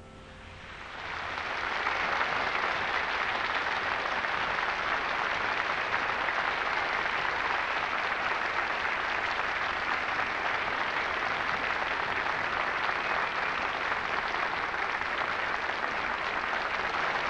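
Studio audience applauding. The clapping swells in over the first second or two and then holds steady.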